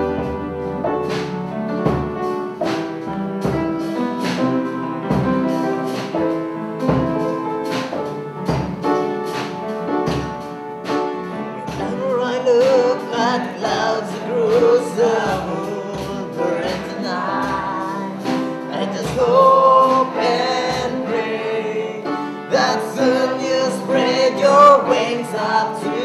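Background music: a song with a steady beat and held instrumental notes, with a singing voice coming in about halfway through.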